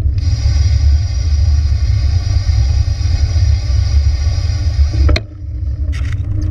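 Wind buffeting the microphone of a camera riding on a moving vehicle, with a steady high whine from the vehicle that cuts off with a click about five seconds in, leaving a quieter rumble and a few light clicks.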